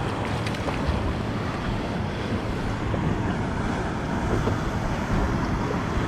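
Steady wind noise on the microphone over waves washing against the rocks.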